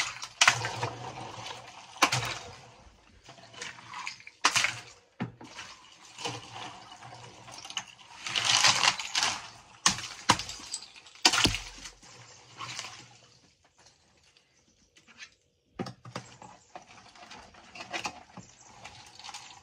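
Ice water sloshing and splashing in a chest freezer as blocks of ice are handled and broken up by hand, with irregular sharp knocks of ice and hammer against ice and the freezer's sides.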